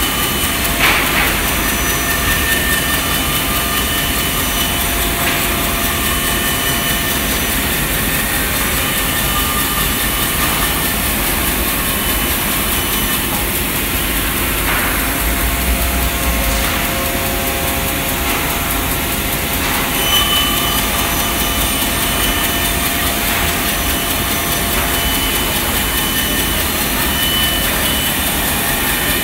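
Woodmaster WM-B2500 CNC jigsaw's reciprocating blade sawing steadily through a stack of thick wooden boards, with the machine's drive running.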